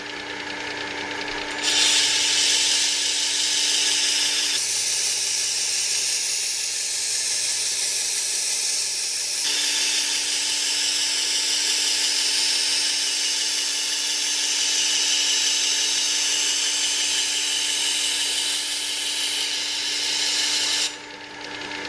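Work Sharp 3000 sharpener running with its belt sharpening attachment, a steady motor hum under the hiss of a kitchen knife edge being ground on a coarse-grit abrasive belt. The machine stops near the end.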